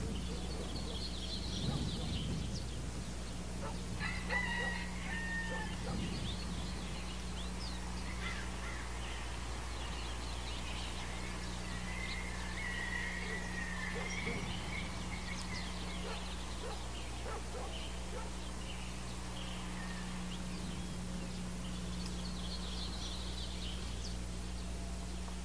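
Farmyard ambience: chickens calling and a rooster crowing, with a long drawn-out crow about twelve seconds in and scattered higher bird chirps, over a steady low hum.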